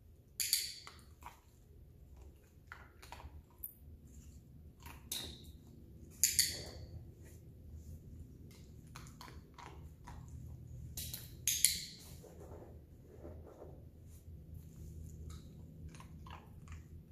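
About five sharp, high clicks a few seconds apart, two of them close together near the middle, with faint handling and rustling between, as a dog's harness is worked on and off around it.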